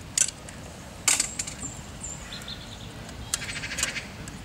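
Sharp clicks and a short rapid rattle as the 3.2 mm grill bars in a jet surfboard's water intake are pried and worked by hand, the bars being tested for how firmly they hold.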